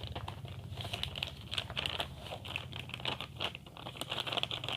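Parcel packaging crinkling as it is handled and opened by hand, a dense run of quick small crackles and clicks.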